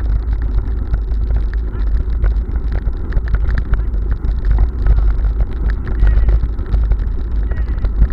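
Bicycle running fast over cobblestones: a continuous rattle and clatter of many small knocks from the bike and its mounted camera, over a heavy wind rumble on the microphone.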